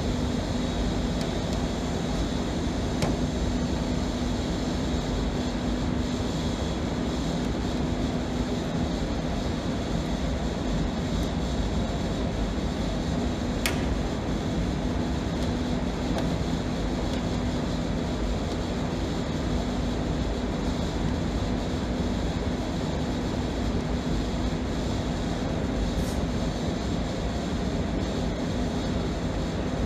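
Steady mechanical hum and hiss from a running machine, unchanging throughout, with a single faint click about fourteen seconds in.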